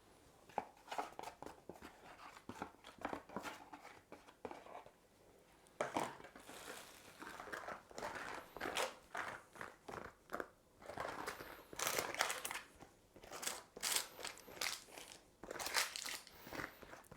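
A plastic scraper scraping and tapping as it spreads melted chocolate across a tray, with some crinkling: a few light strokes at first, then quick, busier strokes from about six seconds in.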